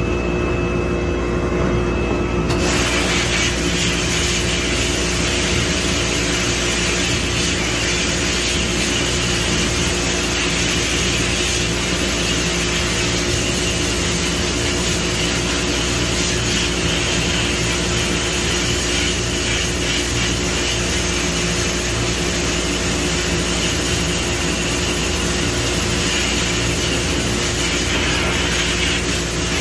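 Sandblasting in an abrasive blast cabinet: the blast gun's steady hiss of compressed air and grit, which starts about two and a half seconds in, over a constant machine hum. The grit is stripping a brake caliper bracket down to bare metal.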